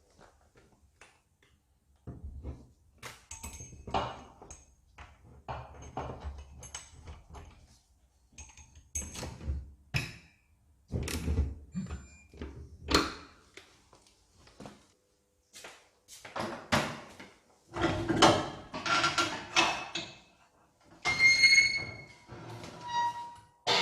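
Hand work on car parts: irregular knocks, thunks and metallic clinks of tools and metal components being handled and fitted, growing busier in the second half, with a few short ringing pings near the end.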